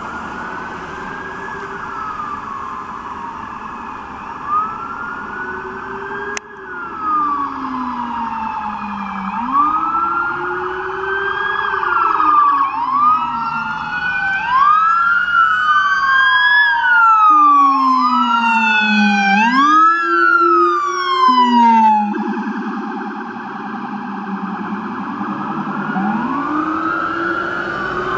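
Police car electronic sirens wailing up and down, with a Rumbler low-frequency siren sweeping the same pattern deep underneath. Two sirens overlap, their wails quickening as the Dodge Charger patrol cars approach and pass. About two-thirds of the way through one cuts off abruptly, and a single slower wail carries on near the end.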